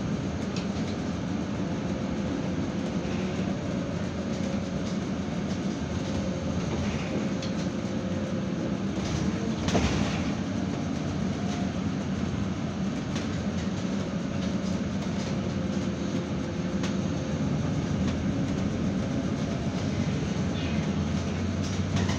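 Cabin sound of a MAN Lion's City GNV city bus under way: the steady drone of its natural-gas engine mixed with road noise. The engine notes rise and fall slightly, and there is a brief knock about ten seconds in.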